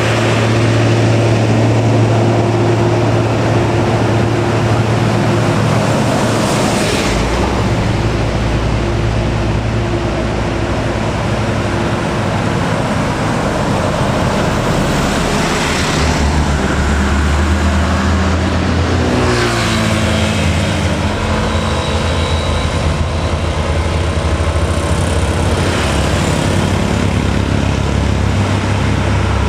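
Diesel engines of heavily loaded trucks labouring up a steep grade, one after another, loud and steady. The engine note changes several times, with a sweep down and back up about twenty seconds in.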